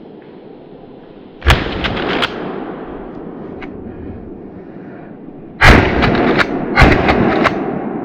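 Gunshots: one sharp report about a second and a half in that rolls on briefly, then a louder cluster of several sharp cracks in quick succession near the end.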